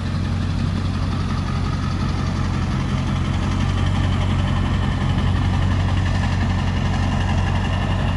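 Ford 7.3 L Power Stroke turbo-diesel V8 idling steadily, an engine the seller calls very healthy. It gets a little louder about three and a half seconds in.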